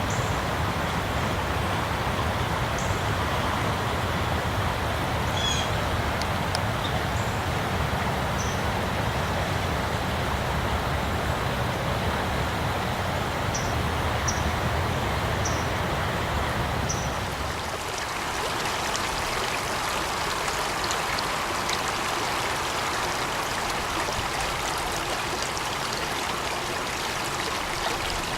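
Steady rushing water, with a low rumble under it and a few brief high chirps for the first two-thirds. About two-thirds in, the sound changes suddenly: the rumble drops away and a rushing brook's brighter, splashing flow carries on.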